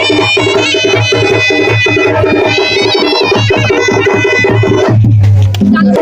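Sambalpuri timkidi baja music: fast, dense traditional Odia drumming over a heavy low beat, with a high stepping melody above it. The drumming thins out briefly about five seconds in.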